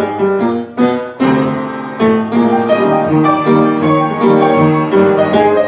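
Piano being played: chords under a melody line, notes struck in quick succession and left ringing.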